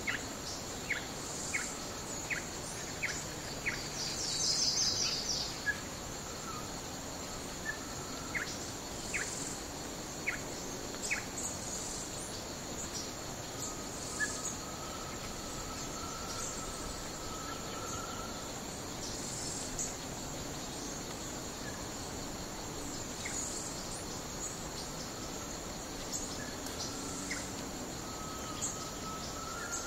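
Forest ambience: a steady high insect drone with scattered short bird chirps, most of them in the first ten seconds, and a brief louder bird trill about four seconds in.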